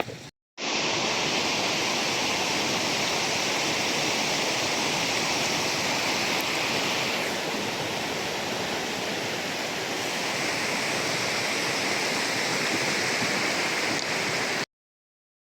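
Steady rush of fast-flowing water, starting abruptly just after the start and cutting off suddenly near the end.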